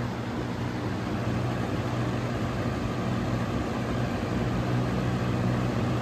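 Box fan running: a steady low hum from its electric motor under an even rush of air from the spinning blades.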